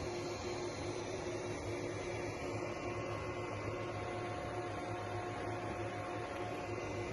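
3D printer running a print: a steady mechanical hum with whining stepper-motor tones, and new higher tones coming in about three and four seconds in as the print head's moves change.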